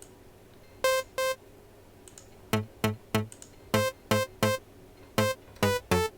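Short synthesizer notes triggered one at a time to check a bass sample's pitch against a reference tone. There are two higher single notes about a second in, then about nine notes at an uneven pace that add a deep bass pitch under the higher tone.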